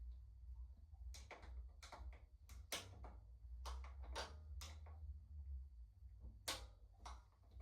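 About a dozen faint, irregular clicks and light knocks from handling e-bike parts and tools during assembly, over a steady low hum.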